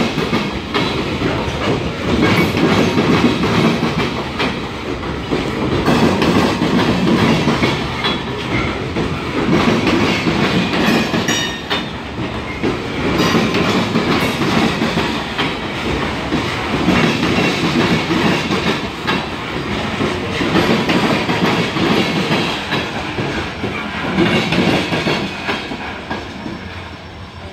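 Slow CSX coal train's freight cars rolling past, wheels clacking over the rail joints, with a rumble that swells and eases every few seconds. It grows quieter near the end.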